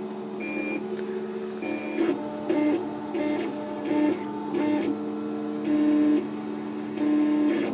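Stepper motors of a scratch-built 3D printer whining as the print head moves through a print. They make a string of short tones that jump in pitch every fraction of a second over a steady hum.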